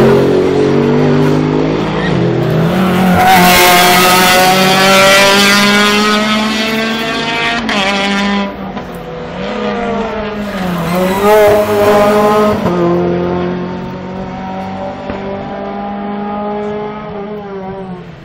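Race car engines running hard as GT cars pass one after another, the pitch climbing and then dropping back sharply several times. The sound eases off after about thirteen seconds.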